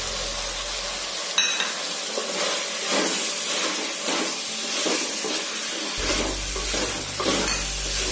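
Chopped vegetables sizzling in coconut oil in a clay pot as chilli powder is stirred in with a spoon, the spoon scraping the pot now and then. A sharp click about a second and a half in.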